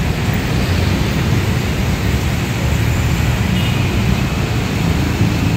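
Steady city street traffic noise: a continuous low rumble with hiss, and no single vehicle standing out.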